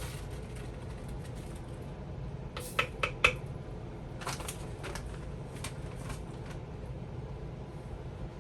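Kitchen containers and utensils being handled: three sharp clicks close together about three seconds in, then a looser run of lighter taps, over a steady low hum.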